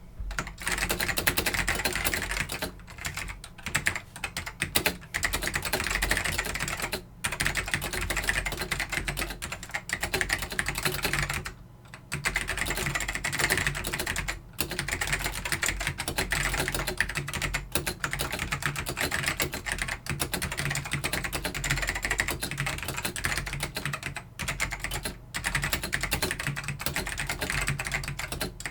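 Continuous typing on a Dell AT102W mechanical keyboard with Alps SK-series black ("Pine") switches: a dense run of key clicks and clatter with a few brief pauses.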